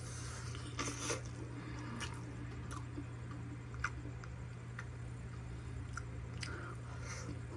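Close-up wet chewing and mouth smacking of someone eating a steamed siomai dumpling, with small clicks scattered throughout and a denser burst of mouth noise about a second in. A steady low hum runs underneath.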